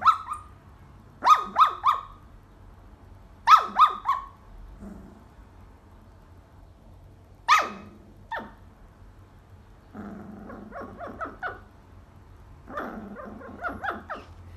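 Dalmatian puppy yipping and barking in its sleep. Short yips that fall in pitch come in groups of two or three, and fainter, quicker runs of little yips follow in the last few seconds.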